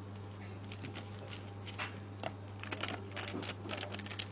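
Foil trading-card packs being shuffled by hand, their wrappers crinkling and clicking irregularly against each other, over a steady low electrical hum.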